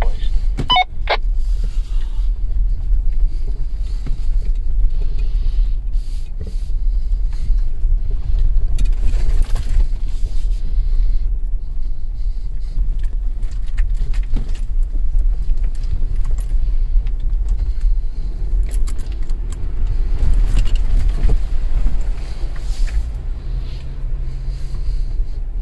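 Steady low rumble of a 4x4 crawling along a dirt off-road trail, heard from inside the cab, with scattered clicks and rattles of loose things jostling.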